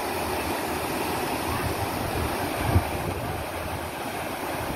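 Swollen flood river rushing through a bridge's piers: a steady rush of water with a fluctuating low rumble, and a brief thump nearly three seconds in.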